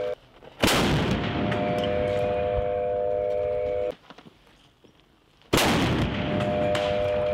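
Two firings of a 240mm 2S4 Tyulpan self-propelled mortar, each a single sudden blast followed by several seconds of echoing rumble; the blasts come about five seconds apart, the first a little under a second in.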